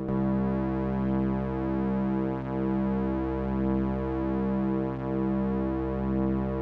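Korg Minilogue analog synthesizer holding one sustained, harmonically rich pad note. Its two slightly detuned oscillators, with slow LFO modulation on pitch and wave shape, make a slow, even wavering about every second and a half.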